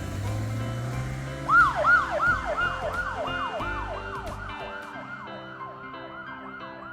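Police siren sound effect: a fast siren whose pitch sweeps down about three times a second, starting sharply about a second and a half in after a low engine hum, then gradually fading. Light background music with a simple melody comes in under it.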